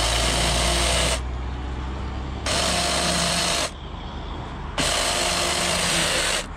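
Taranzy cordless mini chainsaw run in three short bursts of about a second each. Each burst is a steady motor whine while the chain cuts into a pumpkin's shell.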